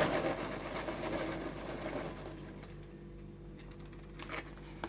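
Freshly microwaved popcorn crackling, a dense patter of fine rapid clicks that fades away after about two seconds, with a couple of single clicks near the end.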